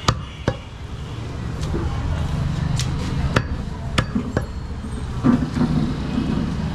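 Heavy butcher's knife chopping goat meat and ribs on a wooden chopping block: a run of sharp knocks, irregularly spaced, about eight in all, over a low murmur of background voices.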